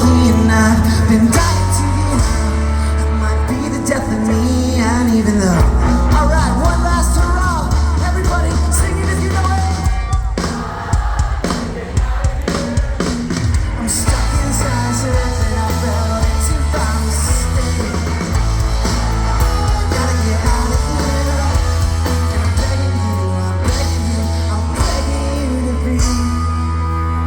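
Rock band playing live, with a lead vocal over the band. The music eases off briefly about ten seconds in, then comes back at full level.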